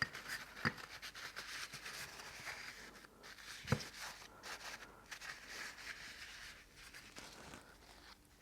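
Hands working over greasy radial-engine parts: soft rubbing and scratching, with two sharp metallic clicks, one just after the start and a louder one a little under four seconds in.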